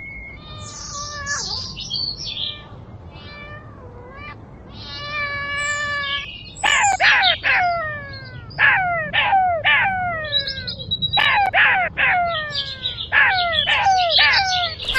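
A cat meowing over and over: sharp falling mews in quick runs of three or four, after a few seconds of shorter, mixed chirping calls.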